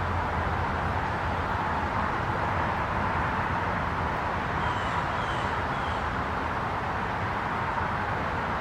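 Steady background noise, even and unchanging, with a few faint short high chirps about halfway through.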